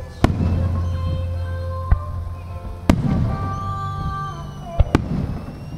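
Aerial firework shells bursting: five sharp bangs, the last two close together, over music playing with the display.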